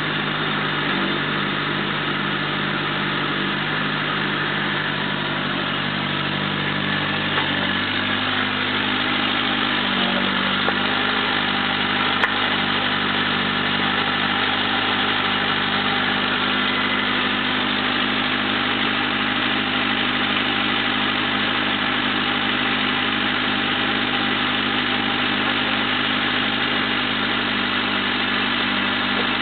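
Mini excavator's diesel engine running steadily while digging, its tone changing about eight seconds in as the arm works. One sharp click about twelve seconds in.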